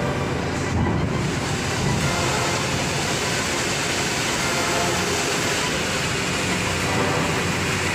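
Diesel engine of a loaded cargo truck running as it drives up the ramp into a ferry's vehicle deck: a steady, dense rumble that grows brighter as the truck comes closer.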